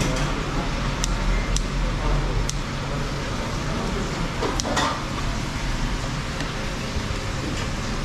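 Kitchen scissors snipping braised tripe while metal tongs hold it in a ceramic bowl: a handful of short, sharp clicks, one every second or two. Under them runs a steady low rumble of traffic.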